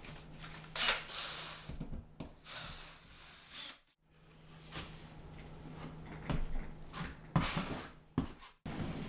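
Drywall knife scraping and spreading joint compound over a drywall patch in short, irregular strokes.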